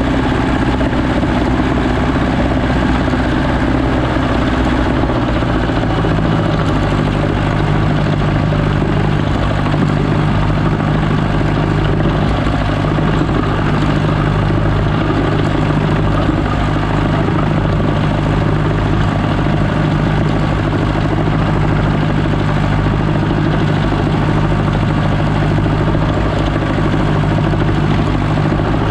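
Landini Trekker 85 crawler tractor's Perkins diesel engine running steadily under load while it pulls a field roller. Its note drops slightly about five and a half seconds in and then holds steady.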